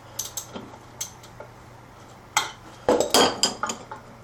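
Metal socket and tools clinking and clicking against a small engine while tight bolts are being loosened: a few light clicks, then a louder cluster of clinks in the second half.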